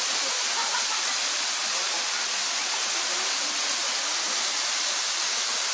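Small waterfall cascading steadily into a pool, a constant even rush of falling water.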